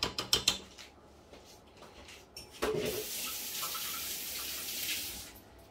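Metal clinks and knocks as the whisk attachment is taken out of a stand mixer's steel bowl. About two and a half seconds in, a kitchen tap starts running in a steady stream for nearly three seconds, then is turned off.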